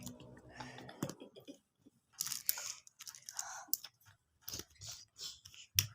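Small plastic building blocks being handled and pressed together: irregular crunchy scrapes and clicks, with a sharp click near the end.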